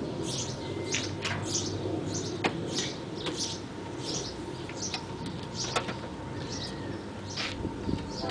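Birds chirping, short high calls repeating about once or twice a second, with a few sharp clicks in between.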